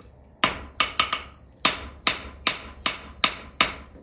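Blacksmith's hand hammer striking hot square steel bar on an anvil, about three blows a second, each one ringing, while touching up a drawn-out tapered point.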